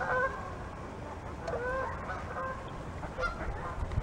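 A flock of geese honking, several birds calling over one another in short bursts: a cluster of honks at the start, more around the middle and again near the end.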